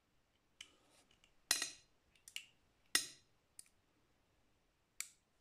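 Sharp metallic clicks of a small .320 Bulldog revolver's action being worked by hand: about six clicks with a short ring after each, the two loudest about a second and a half apart near the middle.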